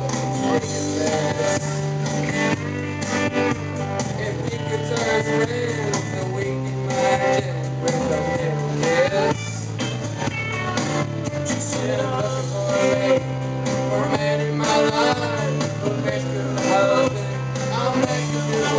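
A man singing into a microphone over a recorded backing track with guitar, amplified through a PA, as in karaoke.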